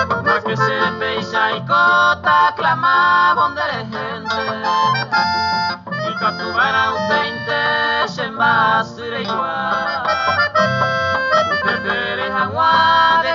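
Instrumental passage of Paraguayan music: accordion playing the melody over Paraguayan harp and bass, with a dull, band-limited old-record sound.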